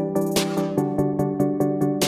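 Background electronic music with a steady beat: sustained synthesizer chords under a quick, regular hi-hat ticking, with a cymbal-like swell about half a second in.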